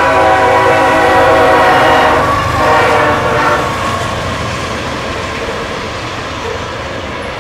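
Freight locomotive air horn sounding one long blast that ends about three seconds in. After it, the steady rumble of intermodal well cars carrying containers rolling past the crossing.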